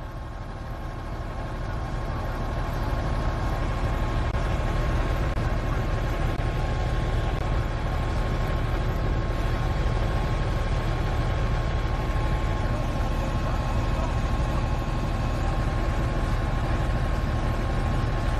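Heavy diesel engine of earthmoving machinery running steadily, a deep rumble that swells over the first few seconds and then holds.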